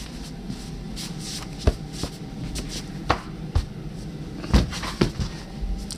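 Several dull thumps and knocks, about five in a few seconds, as a folding gymnastics beam is handled and set down.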